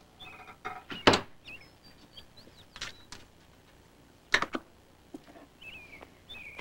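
Three sharp knocks or clatters, about a second and a half apart, with faint high chirps in between.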